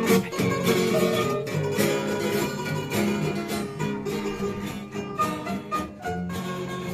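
Background music led by plucked guitar, with a steady rhythm of picked notes.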